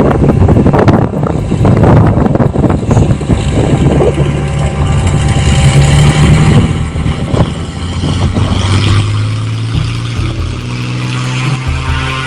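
Small agricultural aircraft's engine running steadily, with wind buffeting the microphone. The engine's pitch drops about seven seconds in, and the gusty noise eases after that.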